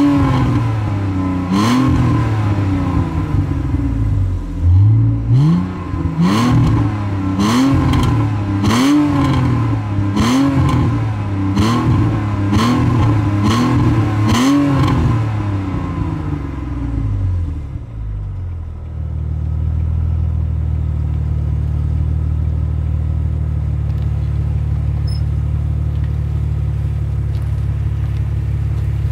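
BMW 330i's straight-six revved in about ten quick blips, each lift-off followed by sharp pops and crackles from the exhaust on overrun. After the last blip the revs drop and it settles into a steady idle about two-thirds of the way through. The pops come from a modified overrun fuel cutoff in the Siemens MS43 engine computer, with aftermarket headers and the exhaust flap held open.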